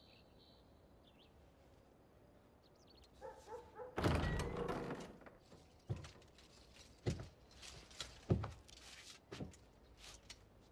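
Faint birdsong, then a heavy door opening about four seconds in: a short creak, then a loud rush and thud. Slow, heavy footsteps follow, about one a second.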